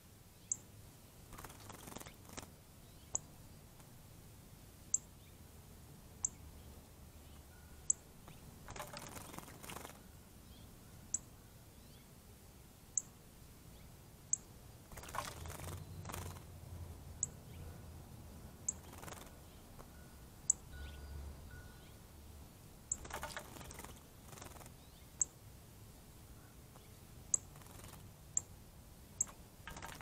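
Female northern cardinal bathing in a shallow bird bath, splashing the water in short bursts every few seconds. Sharp, very high ticks come irregularly every second or two throughout.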